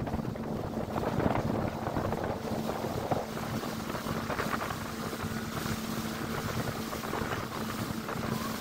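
Motorboat under way at speed on open sea: a steady engine drone under the rush of water and wind on the microphone, with a few thumps.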